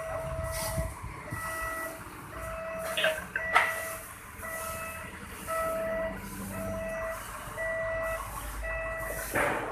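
An electronic warning beeper sounds a steady tone about once a second, like a reversing alarm, over a low engine rumble. Two sharp metallic knocks come about three seconds in, and a loud noisy burst comes at the very end.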